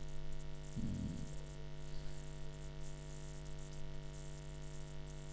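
Steady electrical mains hum and buzz with hiss on the recording, with one short low voice sound about a second in.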